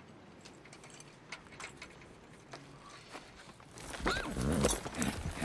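Faint quiet ambience with small scattered ticks, then about four seconds in a horse being mounted: heavy hoof thuds and a short creak.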